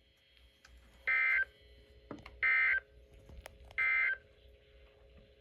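Emergency Alert System end-of-message code: three short, identical bursts of digital data tone about a second and a third apart, signalling that the alert broadcast has ended.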